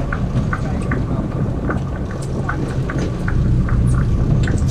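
Steady low rumble of a sportfishing boat's engine, with scattered light clicks over it.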